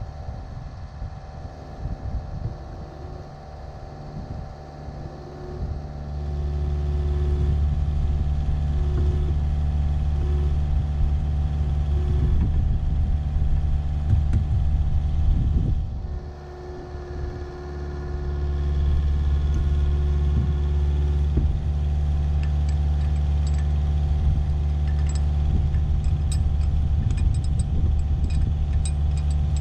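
Compact excavator's diesel engine running under hydraulic load while the machine lifts with its bucket. The engine note rises about six seconds in, sags briefly around sixteen seconds and picks up again. Light metallic clinks come near the end.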